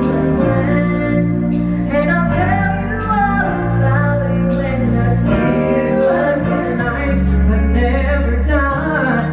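A singer performing with live band accompaniment, including piano, in a theatre stage show. Sustained sung notes ride over held bass notes that change every second or so.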